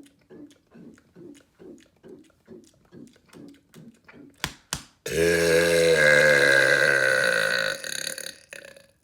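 A man's long, loud burp, about two and a half seconds, its pitch sliding slightly down before it trails off. Before it come soft rhythmic pulses, about two or three a second, then two sharp clicks.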